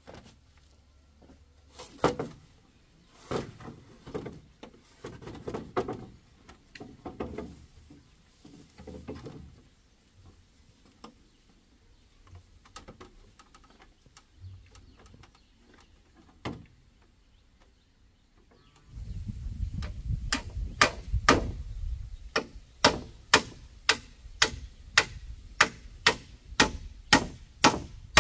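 Scattered knocks and thuds of wood being handled, then, past the middle, steady blows of a hand tool striking wood, nearly two a second, over a low rumble.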